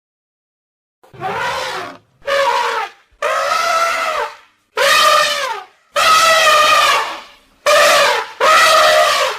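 Wild elephant trumpeting: about seven loud, brassy calls of roughly a second each, one after another with short gaps, starting after a second of silence.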